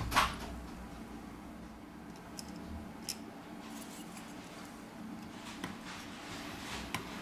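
Faint scattered clicks and taps of a plastic spudger and fingers pressing a smartphone's motherboard and connectors into place, with one sharper knock just after the start, over a low steady hum.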